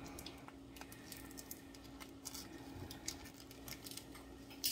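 Fingers picking at the plastic wrapping of a fresh mozzarella ball: a scatter of faint small clicks and crinkles, over a faint steady hum.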